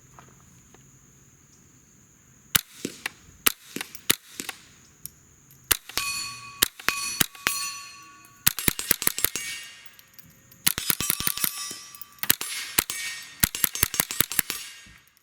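Suppressed Smith & Wesson M&P 15-22, a .22 LR semi-automatic rifle, firing subsonic standard-velocity rounds, heard from in front of the muzzle. First come a few single shots, then several rapid strings of shots. Each report is a short sharp crack.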